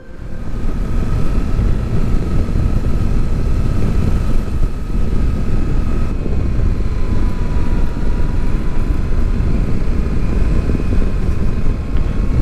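Yamaha Tracer 700's parallel-twin engine running on the move under heavy wind and road rush, with a faint steady whine above it.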